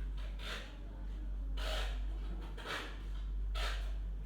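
Short rubbing or scraping swishes, four of them about a second apart, over a steady low hum.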